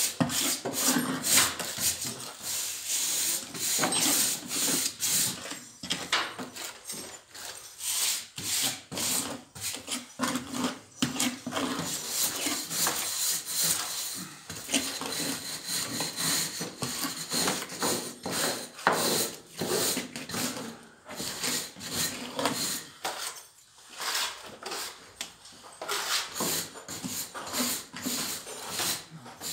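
Irregular scraping and rubbing: plaster being pressed and smoothed into the joints between the wooden boards of a beamed ceiling.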